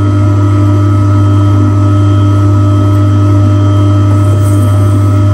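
Tormek T-2 Pro knife sharpening machine's electric motor running with a steady low hum.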